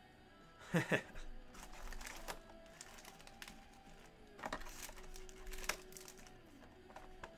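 Shrink-wrapped trading-card boxes handled and set down on a table: scattered knocks and plastic crinkling, the loudest pair of knocks about a second in, over faint background music.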